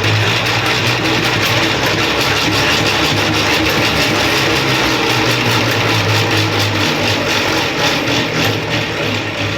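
Centrifugal honey extractor spinning frames of honeycomb, a loud steady whirring with a low hum and rattle. It runs at a speed the beekeepers find too fast, enough to bow the frames.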